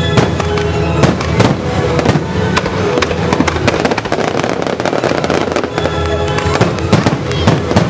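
Fireworks bursting with many sharp bangs and crackles in quick, irregular succession, over loud recorded music with sustained chords playing along with the display.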